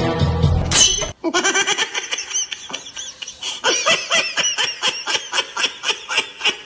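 Music that cuts off about a second in, followed by rapid high-pitched laughter: a long run of quick giggles, several a second.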